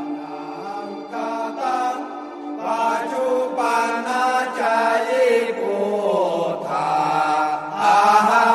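Chanted singing as a music soundtrack: long, slowly sliding vocal notes over a steady low drone, getting louder near the end.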